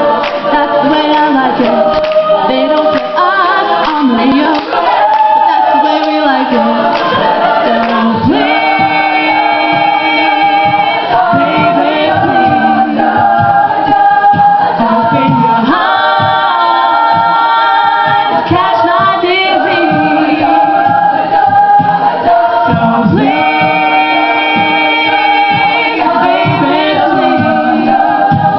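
Choir singing a pop song in multi-part harmony, a cappella, with sustained chords.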